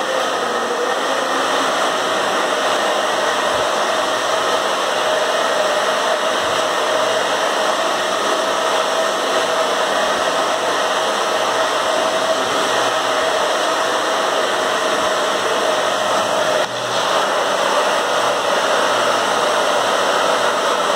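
Handheld hair dryer running steadily, a rush of air with a steady hum in it, drying fresh metallic PVA paint on an MDF box. It dips briefly about three-quarters of the way through.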